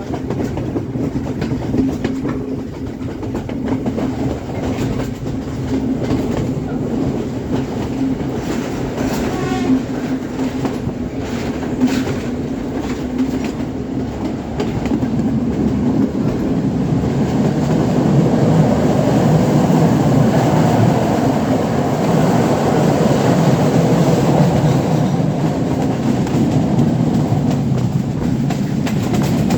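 Passenger train running along the track, a steady rumble of wheels on rails that grows louder about halfway through.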